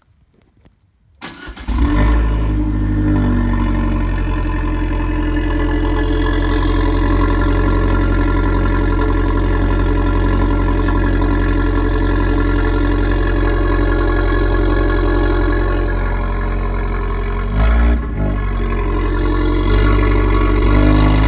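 Fiat Abarth 595 Turismo's 1.4-litre turbocharged four-cylinder being cold-started: a brief crank about a second in, then it catches and settles into a steady cold idle. A short change in the engine note comes a few seconds before the end.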